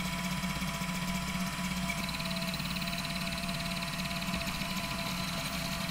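Snapmaker Original 3-in-1 laser engraving cardboard: a steady mechanical hum from the stepper motors moving the laser head and bed, with a slightly higher whine joining about two seconds in.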